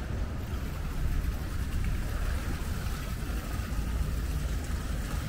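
Canal-side outdoor ambience: a steady low rumble with an even hiss over it, slightly louder from about a second in.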